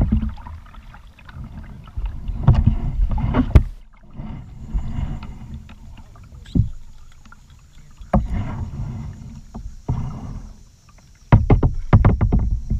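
Kayak paddle strokes: the paddle dipping and splashing in the creek every second or two, unevenly, with a low rumble on the microphone under the strokes and a quick run of splashes near the end.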